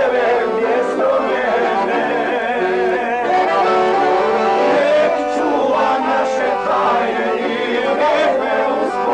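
Accordion playing a folk tune, with a man singing over it in a wavering voice.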